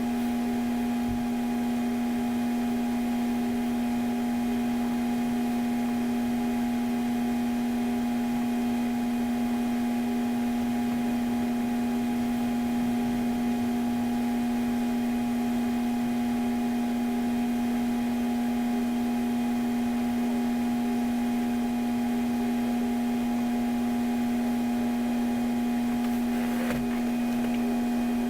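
Steady electrical or machine hum with one strong low tone and fainter higher whining tones, from a running computer during a long file copy to a USB thumb drive. A small click near the end.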